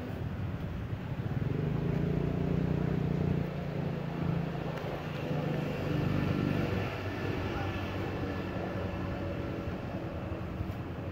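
A motor engine's low, steady hum over outdoor background noise. It swells about a second in and fades after about three and a half seconds, then comes back more weakly around five to seven seconds.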